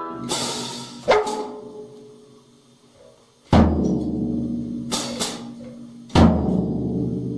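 Drum struck unevenly about six times, each hit left to ring out, the two loudest with a deep low boom. A noisy crash comes just after the start.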